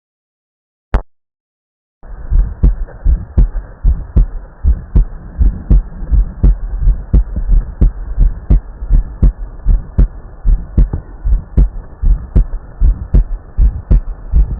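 Human heartbeat heard through a stethoscope: a steady rhythm of low thumps, a little over one beat a second, over a constant hiss. It starts about two seconds in, after a silent gap broken by a single click.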